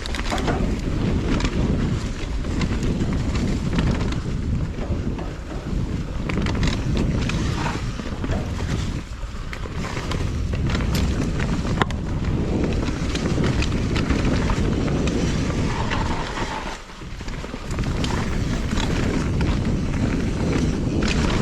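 Mountain bike, a Santa Cruz Nomad, ridden fast down a dirt jump trail: wind buffeting the microphone over the rumble of tyres on dirt, with steady clicks and knocks of the chain and suspension over the bumps. It goes briefly quieter about 17 seconds in.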